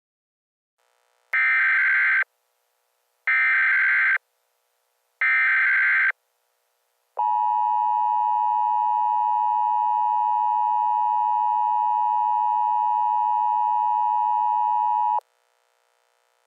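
Emergency Alert System tones. First come three short bursts of the SAME digital header, each just under a second long, with about a second between them. Then the steady two-tone EAS attention signal sounds for about eight seconds and cuts off sharply. Together they announce the start of an emergency alert broadcast.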